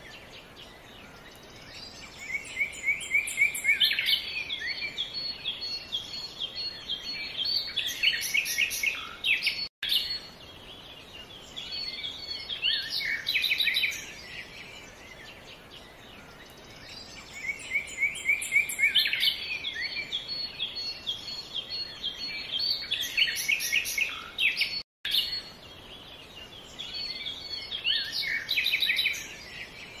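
Songbirds singing in bursts of rapid chirps and trills over a steady background hiss. The same stretch of song repeats about every fifteen seconds, and the sound cuts out very briefly twice.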